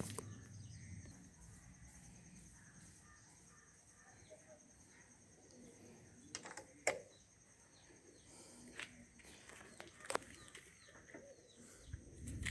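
Faint bird chirps over a quiet background, with two sharp clicks about seven and ten seconds in.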